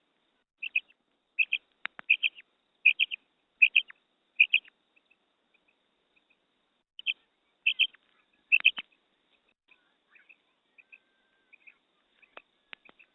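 Female quail calling: short, high double notes repeated in a quick series, then a pause and a second series. Fainter notes and a few sharp clicks follow near the end.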